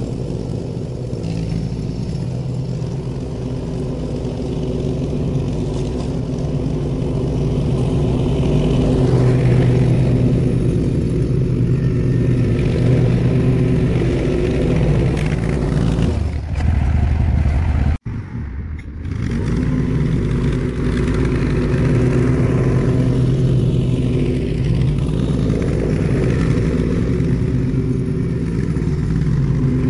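Allis-Chalmers 712H garden tractor engine running steadily, with a brief break about eighteen seconds in before it carries on.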